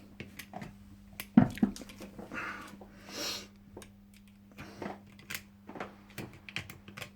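Small irregular clicks and taps of a locksmith's tools being worked into a drilled five-lever mortice lock, with a sharper knock about a second in and a couple of brief scrapes.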